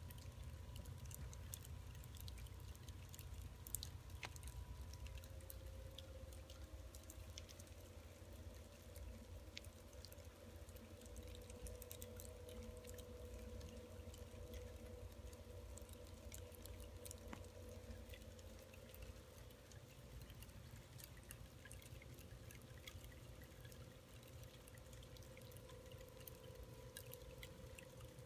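Wood-boring beetles chewing through freshly cut mesquite logs: faint, irregular clicking and crackling from inside the wood.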